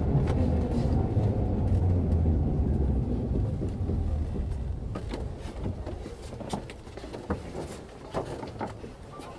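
Running sound of a 1920s Berlin U-Bahn type AI railcar heard from on board: a heavy low rumble of the running gear that fades steadily as the train slows. Sharp clicks and knocks come through more clearly in the second half.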